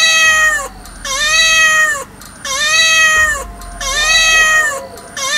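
A cat meowing: the same long, drawn-out meow repeated about five times at even intervals, each call rising at the start and falling away at the end.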